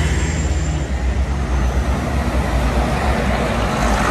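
A large vehicle running with a steady low hum over street traffic noise; one low tone in the hum drops away about a second in.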